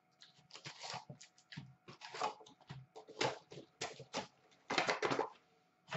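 Hockey card pack wrappers being torn open and crinkled, with cardboard box flaps and cards being handled: a run of irregular crackles and rustles, the longest about a second in, near the middle and near the end.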